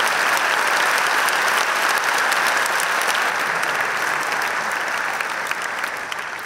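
Audience applauding, a dense patter of many hands clapping, steady at first and starting to die away about five seconds in.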